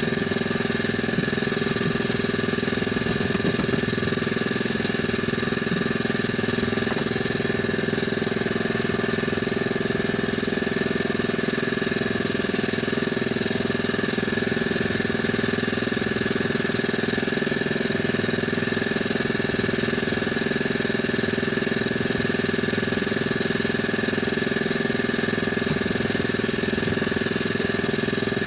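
A small engine on board the outrigger fishing boat running at a steady, unchanging speed, with a steady whine over its hum.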